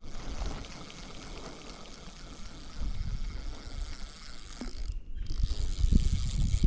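Spinning reel being cranked, its gears and rotor whirring with a fine ratchet-like clicking as line is wound in. Low bumps and rumble come in near the end.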